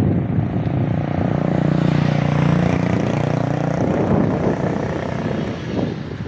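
A motor vehicle's engine runs close by in street traffic: a steady drone that swells about a second in and drops away a little before the four-second mark, over continuous traffic noise.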